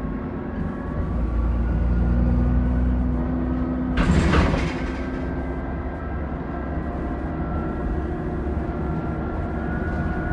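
Alexander Dennis Enviro400 Trident double-decker bus's diesel engine running, with a thin steady turbo whine above the engine note. About four seconds in, a short loud hiss cuts across it, and afterwards the whine climbs slightly.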